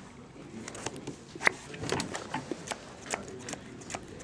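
Magic: The Gathering cards being handled at a table: a string of irregular short clicks and taps as cards are picked up and laid down, one sharper snap about a second and a half in.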